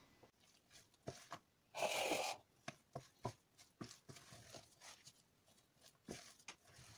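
Wooden spoon stirring thick cake batter with raisins in a plastic bowl: soft scrapes and small knocks against the bowl, with one louder scraping rustle about two seconds in.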